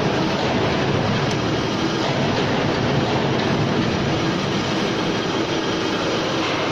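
CW62100Q heavy-duty horizontal lathe running with a large workpiece spinning in its chuck: a loud, steady machine noise with a faint steady hum.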